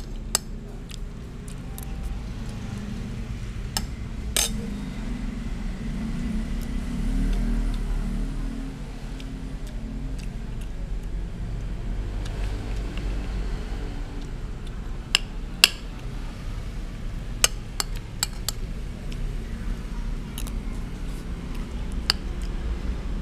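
Metal spoon clinking and scraping against a glass plate and a plastic bowl while scooping rice and fish: scattered sharp clicks, several close together in the second half, over a steady low rumble.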